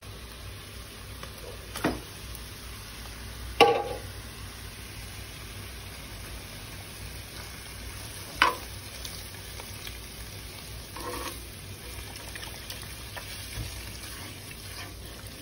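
Pork rib pieces sizzling steadily in a non-stick pan while being stirred and turned with a spoon. The spoon knocks sharply against the pan three times, loudest about three and a half seconds in.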